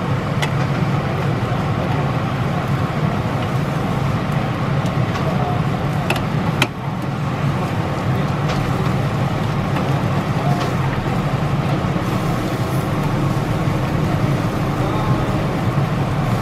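Steady low rumble of street ambience around an outdoor charcoal barbecue stall, with a few faint ticks and one sharp click a little past the middle.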